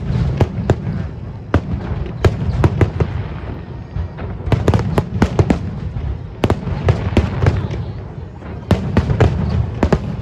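Aerial fireworks going off in quick clusters of sharp cracks and bangs, several a second at the busiest moments, over a steady low background noise.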